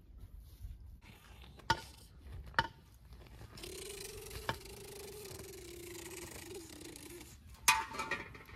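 Metal ladle stirring and scraping inside a steaming pot on a wood fire, a steady scrape lasting a few seconds, with a few sharp clinks before it and a louder clatter of metal near the end.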